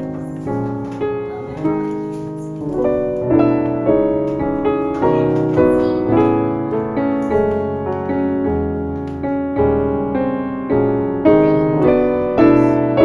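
Background piano music, gentle notes played about twice a second, each fading away.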